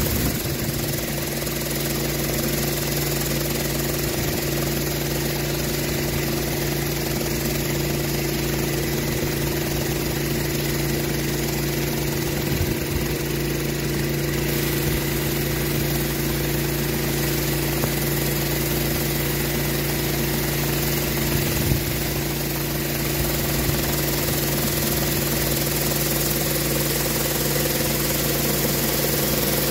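Pressure washer engine running steadily at a constant pitch, with the hiss of water jets from a rotary surface cleaner scrubbing wet pour rubber surfacing.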